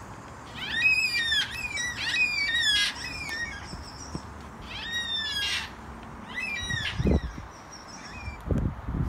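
Yellow-tailed black cockatoos calling: several drawn-out calls that arch up and down in pitch, in clusters over the first three seconds and again about five and seven seconds in. A few low thumps follow near the end.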